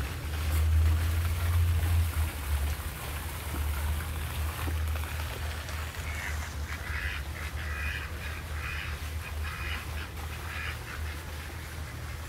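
A flock of ducks quacking, a quick run of short calls from about halfway through until near the end. Under it is a low rumble of wind on the microphone, strongest in the first couple of seconds.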